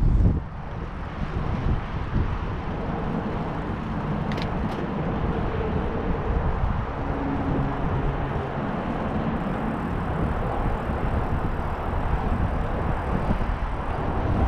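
Wind buffeting the microphone over the running noise of a bicycle being ridden, a steady rumble, with two short clicks about four seconds in.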